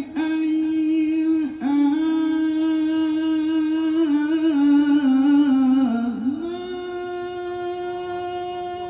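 A man's voice in melodic Quran recitation (tilawah), amplified through a handheld microphone and loudspeakers, holding long ornamented notes. The pitch dips briefly twice, about a second and a half in and about six seconds in, then settles into one long steady note.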